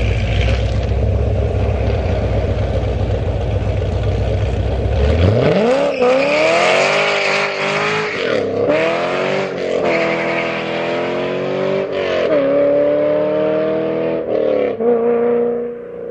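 2002 Corvette Z06's 5.7-litre LS6 V8 through a BB PRT exhaust, with long-tube headers and high-flow cats. For about five seconds it gives a deep steady rumble. Then it accelerates hard, its pitch climbing and dropping back at each of several upshifts as the car pulls away, and the sound thins out near the end.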